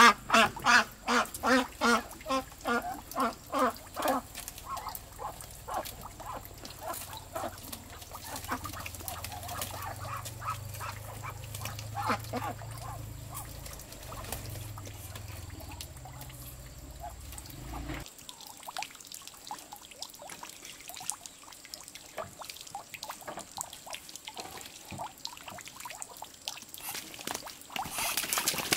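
A Muscovy duck being handled calls loudly in a quick run of short, evenly repeated calls for the first few seconds. Fainter calls and scuffling from the flock follow.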